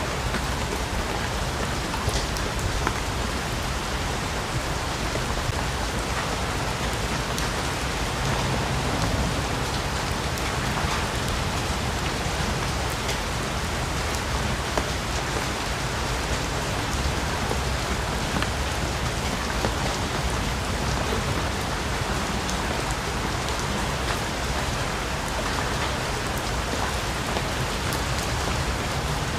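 Steady rain falling, an even hiss with scattered individual drops pattering and dripping.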